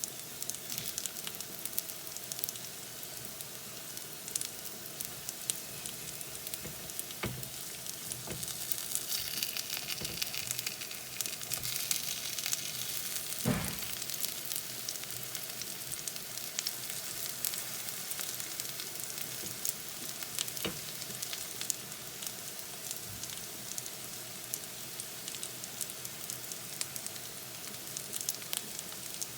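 Besan-battered plantain slices sizzling in shallow oil in a frying pan as they are turned over one by one, with a few knocks against the pan, the loudest about halfway through. The sizzle swells for a few seconds before that knock.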